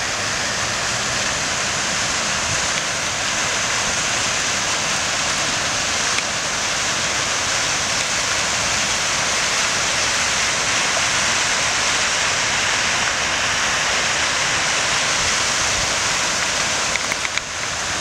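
Large multi-jet fountain splashing steadily, its jets falling back into the basin. A few brief clicks come near the end.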